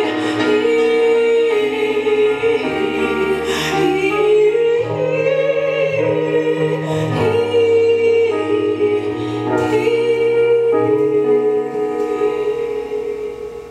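Slow music with singing: long held notes over changing bass notes, fading out near the end.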